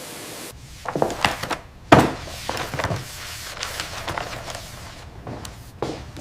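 A series of irregular knocks and thuds, about a dozen, the loudest about two seconds in, after a brief steady hiss at the start.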